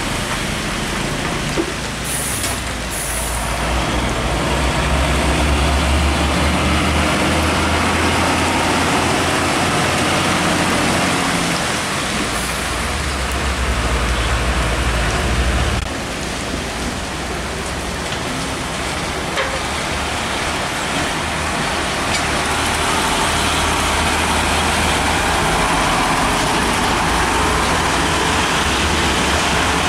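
Heavy diesel trucks passing on a rain-soaked road: a Hino 500 container truck's engine drones low as it pulls past, over steady hiss from rain and tyres on wet asphalt. Two short high hisses come about two seconds in, and the engine drone cuts off suddenly about halfway through, leaving the rain and road noise as more trucks approach.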